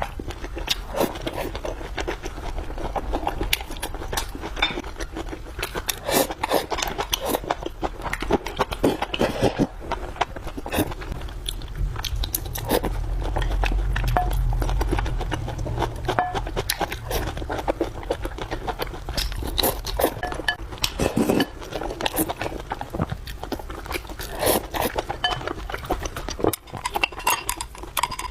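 Close-miked eating: rapid, irregular chewing and mouth clicks with crunching, and now and then the clink of cutlery or a dish. A low rumble swells up about halfway through and fades again.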